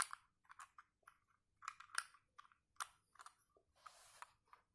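Plastic LEGO bricks clicking and rattling as they are handled and picked through, a series of small sharp clicks with a short rustle about four seconds in.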